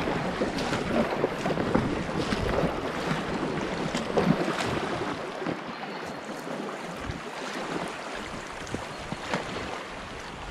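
Rushing water of river rapids with short splashes against a packraft, easing off somewhat about halfway through.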